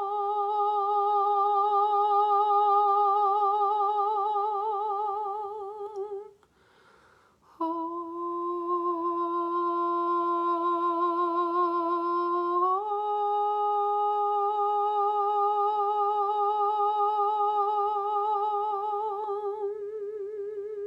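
A woman's voice singing long, wordless sound-healing tones with a slow, even vibrato. She breaks off for a breath about six seconds in, comes back on a lower note, and steps up to a higher one about thirteen seconds in.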